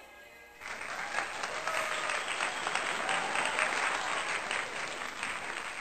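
Crowd applause with some faint cheering voices in it, starting suddenly about half a second in; with no audience in the scene, this is an added applause sound effect.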